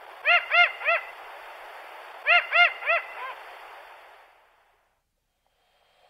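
A bird's hooting call: two runs of three short notes, each rising and falling in pitch, about a third of a second apart, with a fainter fourth note after the second run, over a steady hiss that fades away.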